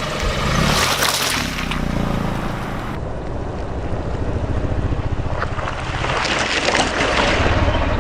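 Car tyre rolling slowly over floral foam blocks and crushing them, with the car's engine running low underneath. Crackly bursts of crushing come about a second in and again from about six to seven and a half seconds.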